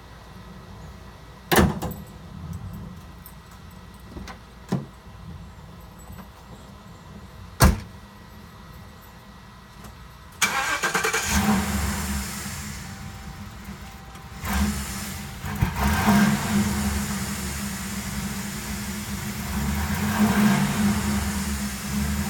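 A few sharp knocks, then about ten seconds in the 2007 Ford Crown Victoria's 4.6-litre V8 starts and keeps running steadily.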